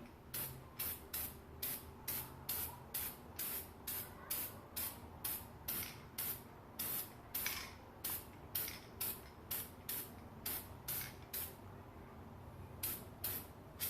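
Ratchet wrench being worked back and forth to run down a bolt on the engine, its pawl clicking in short, even strokes about two a second, with a brief pause near the end.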